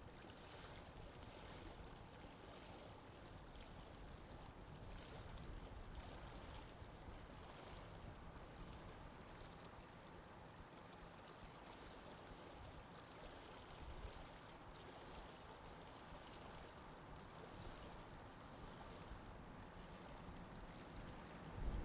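Faint, steady lake-water ambience: gentle moving water with no distinct events.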